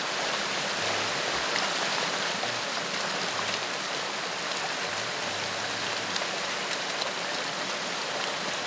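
Wood fire of a fish smokehouse, crackling: a steady hiss dotted with scattered small pops and snaps.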